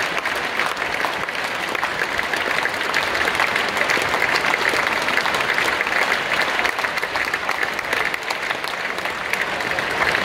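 A large theatre audience applauding steadily during the cast's curtain call, a dense crackle of many hands clapping.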